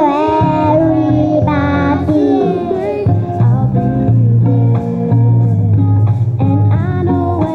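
Young children singing a song into a microphone over backing music, the voices strongest in the first couple of seconds before the music carries on with steadier notes over a bass line.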